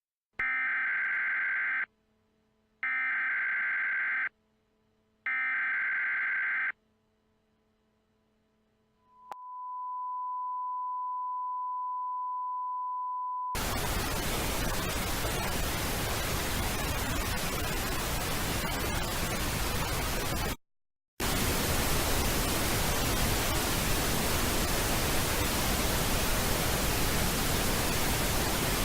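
Emergency Alert System signalling: three short bursts of warbling digital data tones, each about a second and a half long, marking the end of the alert message. A steady single beep-tone follows for about four seconds, then loud TV static hiss that cuts out briefly about two-thirds of the way through.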